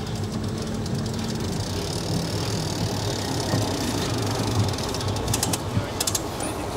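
Rolling noise of a pedicab ride: a steady rumble of wheels and surroundings, with a few sharp clicks and rattles near the end. The pedicab is heavily loaded and one tyre is going flat.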